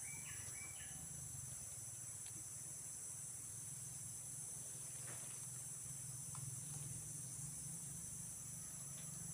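Steady, high-pitched chorus of crickets shrilling without a break, over a low steady hum.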